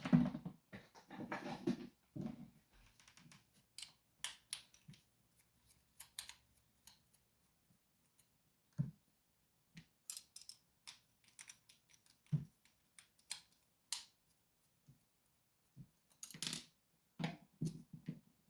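Scattered small clicks and taps of metal parts and tools being handled while a Sargent lock cylinder is taken apart.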